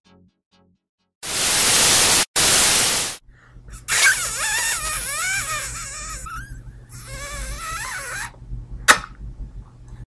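Sound design for an animated logo sting: two loud bursts of static-like noise, then a low drone with warbling high tones and hiss, and a single sharp hit near the end.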